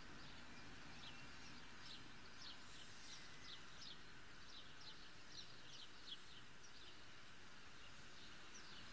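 Small birds chirping in a series of short, high, falling notes over a faint steady hiss.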